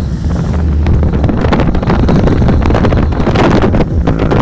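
Wind rushing over the microphone with the low rumble of a moving car's road noise, heard from inside the car on a wet road.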